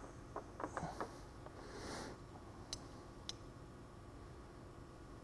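Faint handling sounds of a small plastic part being turned over in the hands: a few light clicks and a soft rustle, then two sharp clicks about three seconds in.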